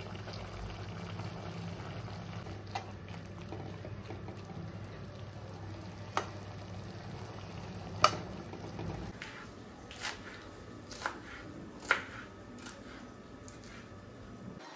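Chicken frying in a kadhai on a gas stove, with a steady low hum and a few sharp knocks of the stirring spoon against the pan. The steady frying sound stops about nine seconds in, and a few more knocks follow.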